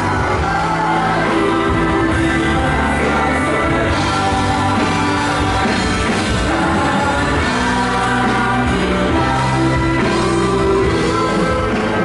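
A musical group performing a song, with singing over instrumental accompaniment.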